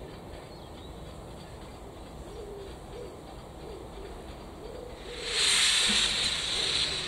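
LMS Princess Coronation Class steam locomotive approaching with a low steady rumble. About five seconds in, a loud steam hiss starts suddenly as its cylinder drain cocks blow steam out at rail level.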